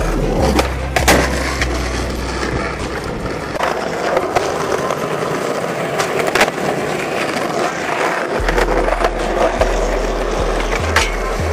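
Skateboard wheels rolling on concrete, with sharp clacks of the tail popping and the board landing several times during tricks. Background music with a deep bass line runs underneath.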